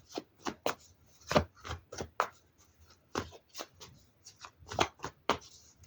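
A deck of tarot cards being shuffled by hand: an irregular string of card slaps and flicks.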